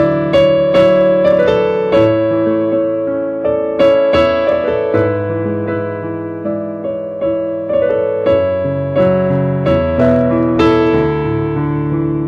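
Slow, sustained chords played on an electric piano or keyboard, with single notes struck over them about once or twice a second.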